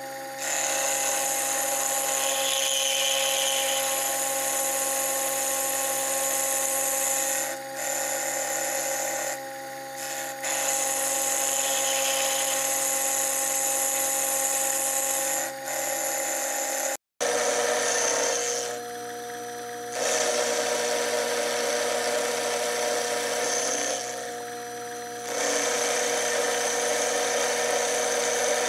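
Sherline mini mill spindle running with its end mill roughing out a steel block: a steady motor whine under the hiss of the cutting. The cutting noise drops away briefly several times as the cutter comes out of the work, leaving the motor sound.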